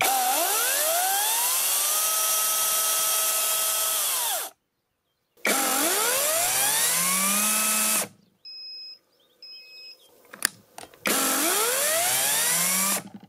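Parkside Performance PPKSA 40-Li A1 cordless brushless chainsaw running with no load, switched on three times. Each time the motor and chain whine up quickly to a steady high speed, run for a few seconds and cut off when the trigger is released.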